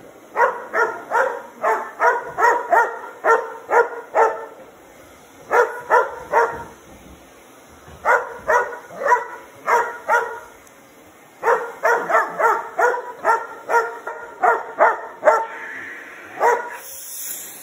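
Border collie barking in quick runs of short, sharp barks, about three a second, with brief pauses between the runs.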